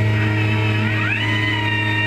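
Background music: a held low bass note under a high lead line that glides up about half a second in and then holds.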